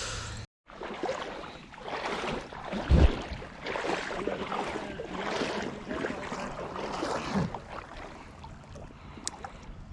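River water rushing and splashing, with a low thump about three seconds in.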